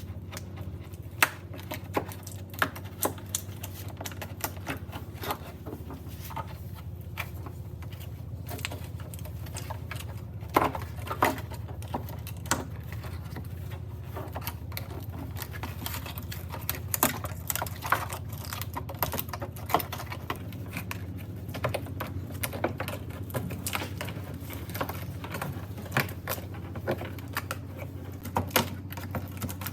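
Irregular light clicks and taps, a few of them sharper, over a steady low hum.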